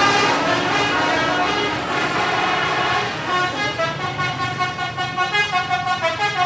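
Indonesian 'telolet' multi-tone musical bus horn playing: a sustained horn chord fades at the start, then from about three seconds a quick melody of short notes, about four a second, until it cuts off at the end.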